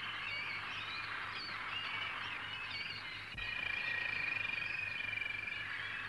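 Canaries singing: quick, high warbling twitters, then, after a small click about three seconds in, a long, even rolling trill lasting about two seconds.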